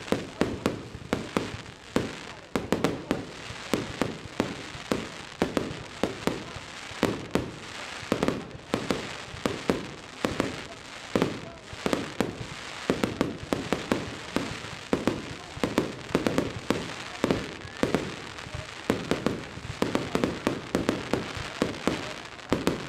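Fireworks display going off: a dense, irregular run of bangs, several a second, with no real break.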